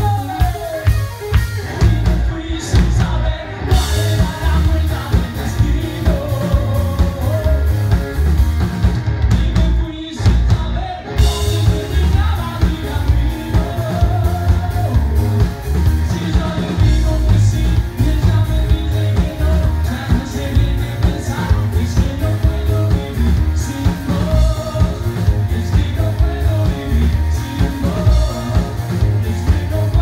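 Live rock band playing, with a male singer singing over electric bass guitar and drums. The music drops out briefly about ten seconds in.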